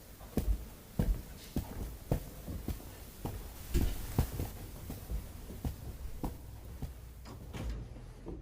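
A series of light knocks, roughly two a second and slightly irregular, over a low steady hum.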